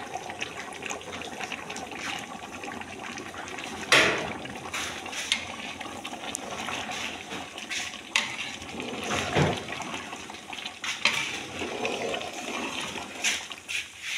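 Water poured and splashing into a large aluminium pot of chicken curry, then a metal ladle stirring the thick curry, with several sharp knocks and scrapes of the ladle against the pot's side; the loudest knock comes about four seconds in. The water is added to thin the curry into a gravy.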